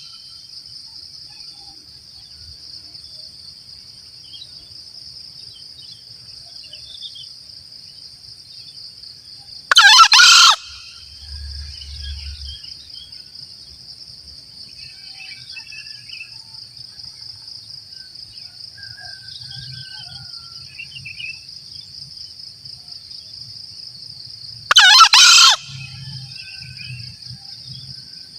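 Green junglefowl crowing twice, each a short, hoarse two-part crow, about 10 seconds in and again near the end. A steady high-pitched insect buzz runs underneath.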